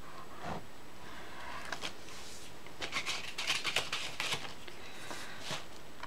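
Edge of a metal palette knife scraping and tapping on a painted canvas in short strokes as it lays thin lines of black acrylic paint, with a quick cluster of scrapes about halfway through.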